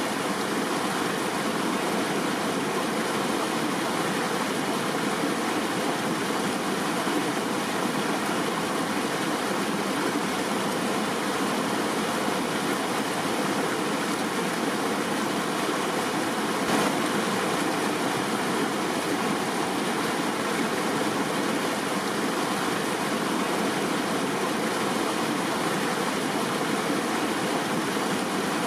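River water flowing, a steady, even rushing sound with no change in level.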